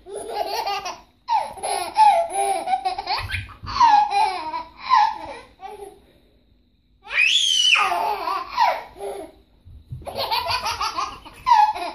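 Baby laughing hard in long runs of high-pitched laughter. There is a break about six seconds in, then a high squeal that rises and falls before the laughing starts again.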